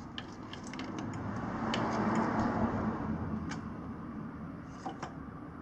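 Irregular small metallic clicks and ticks of a socket wrench turning the crankshaft of a Kawasaki KLX140 engine while the new cylinder is pressed down over the piston. A broad low hum swells and fades in the middle.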